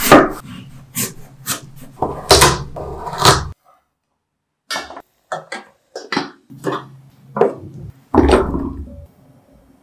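Kitchen knife cutting through raw taro root on a cutting board: sharp cuts about twice a second, stopping for about a second partway through. Near the end, a burst of diced taro cubes tipped from a steel bowl into a glass bowl.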